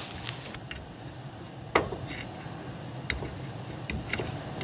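Scattered light clicks and taps of metal parts being handled, with one sharper knock about two seconds in, as a new front strut assembly's top mount is worked up into the strut tower holes.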